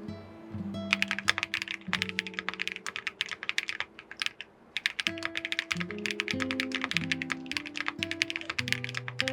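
Typing on an aluminium AKKO MOD008 mechanical keyboard with Kiiboom Sapphire switches: quick runs of key presses that start about half a second in and pause briefly about four seconds in. Background music with plucked notes plays underneath.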